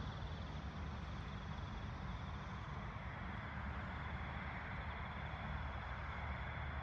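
Steady outdoor night ambience: a low rumble and even hiss, with a faint steady high-pitched tone above them.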